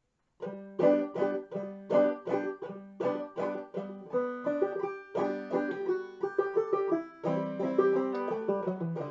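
Five-string banjo played clawhammer style, a waltz in the key of G; the picking starts about half a second in, with bright plucked notes ringing over a steady rhythm.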